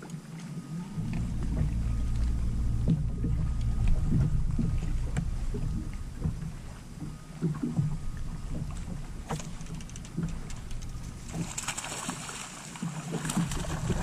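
Low wind rumble on the microphone with water lapping at the boat's hull; about two-thirds of the way through, a couple of seconds of splashing as a hooked bass thrashes at the surface.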